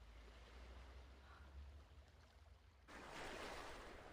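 Faint ocean waves in the background, with a louder wash of surf coming in about three seconds in.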